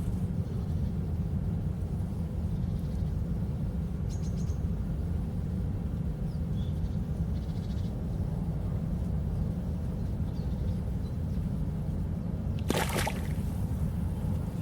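Steady low rumble of wind on the microphone at a riverbank, with a few faint high bird chirps. A short burst of rustling noise comes about thirteen seconds in.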